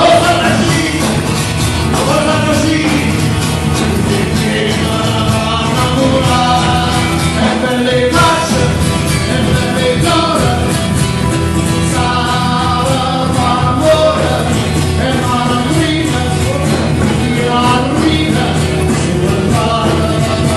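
Live band playing amplified music through a PA, with a man singing lead into a microphone.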